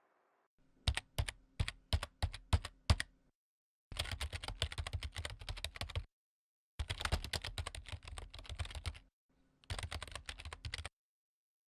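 Keyboard typing sound effect: about eight separate key clicks, then three runs of rapid keystrokes with short silent gaps between them.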